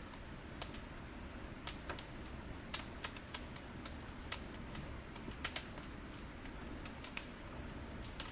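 Fire crackling: a steady hiss under irregular sharp pops and snaps, a few louder ones near the middle.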